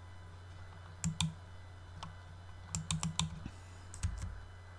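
A handful of sharp clicks and taps: two about a second in, a quick cluster around three seconds, and one more near four seconds. They sit over a steady low electrical hum.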